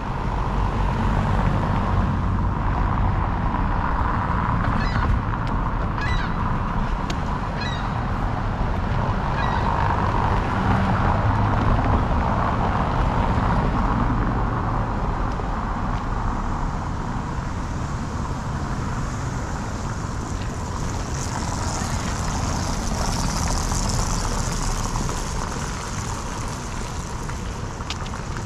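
City street traffic ambience: cars running over a cobblestone street with a steady low rumble. A few short bird calls come about five to nine seconds in. A high hiss, like a car passing close, swells and fades a little past twenty seconds.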